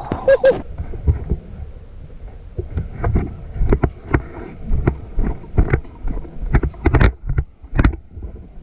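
A player running on foot: irregular thumps of footfalls and jostling gear, roughly two a second, with wind rushing over the microphone.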